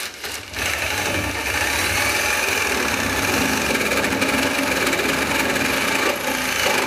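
Reciprocating saw (Sawzall) running steadily, its long blade cutting into the wood between a window frame and the log wall. It starts about half a second in and keeps going, with a couple of brief dips.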